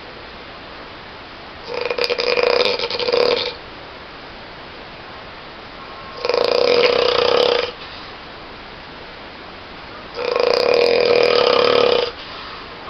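A sleeping person snoring loudly, three snores of about two seconds each, roughly four seconds apart, with quiet between breaths.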